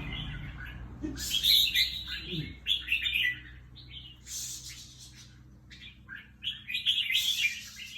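Red-whiskered bulbul singing in short bursts of quick, chirpy warbled phrases, with pauses between the bursts.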